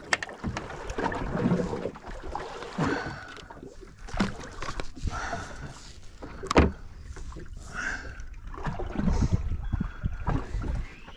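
Noise on board a small boat at sea: water and wind surging unevenly against the hull and microphone. There are a few sharp knocks, one near the start and a louder one a little past halfway.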